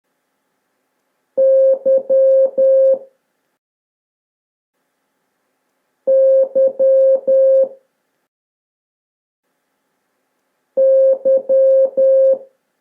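Morse code tones: a steady mid-pitched electronic beep keying the letter Y (dash dot dash dash), played three times about four and a half seconds apart.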